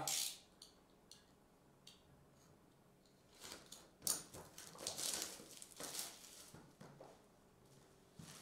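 Plastic shrink wrap on a sealed trading-card box crinkling and tearing as it is slit with a box cutter and peeled off. It comes as a series of short rustles, mostly in the middle.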